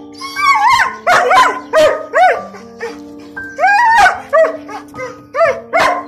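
Long-haired German shepherd barking, a string of loud barks in two bursts with a short pause between them, over background music with steady held notes.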